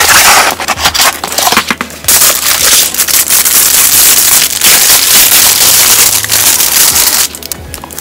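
A box cutter slicing along the taped edge of a box with crackling strokes, then, from about two seconds in, loud continuous crinkling of a clear plastic bag as a wrist rest is pulled out of it, stopping about a second before the end. Soft background music runs underneath.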